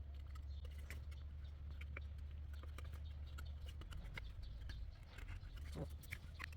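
Faint, scattered clicks and taps from parts being handled and set in place over a steady low hum.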